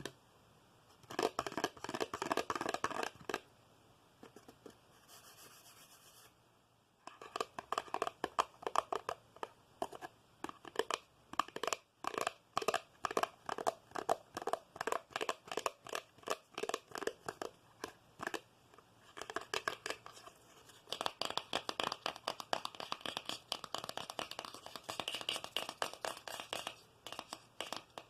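Rapid ASMR fingernail tapping and scratching, in quick runs of many sharp strokes a second, breaking off for a few seconds near the start.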